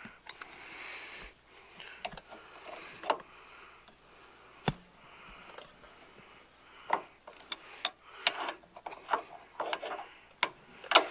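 Irregular metallic clicks, taps and light rubbing as pliers and fingers work a parking brake cable and its retaining clip into the lever bracket, with one of the sharpest clicks near the end.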